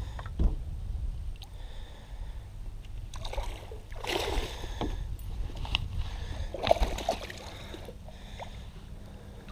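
Two short bursts of splashing and rustling, as a hooked bass is played beside the boat, over a low steady rumble.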